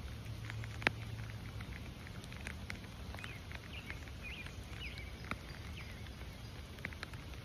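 Rain pattering, with single drops tapping sharply and irregularly close to the microphone.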